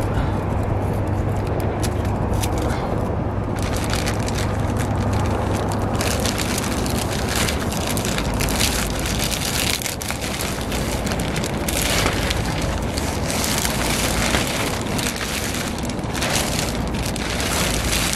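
Thin 3 mil plastic sheeting crinkling and rustling as it is handled and caught by the wind, a dense run of sharp crackles that gets busier about six seconds in, over a low rumble of wind on the microphone.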